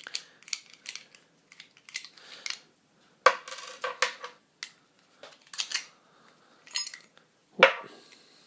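A Latch Lake Spin Grip mic mount being taken apart by hand: its parts click and clink irregularly, with a couple of sharper knocks.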